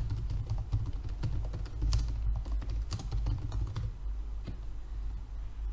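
Computer keyboard typing: quick, irregular keystroke clicks that thin out after about four seconds, over a low steady hum.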